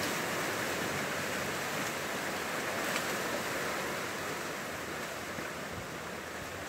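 Strong wind rushing through the trees in a steady, surf-like noise, easing slightly toward the end.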